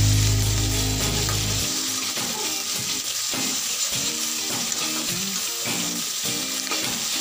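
Chicken feet sizzling in a hot wok as they are stir-fried with a spatula, under background music; a deep low note in the music stops about a second and a half in.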